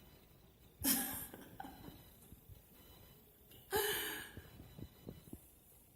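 A person breathing out audibly twice, breathy and airy, about a second in and again nearly four seconds in, with a few faint low knocks between.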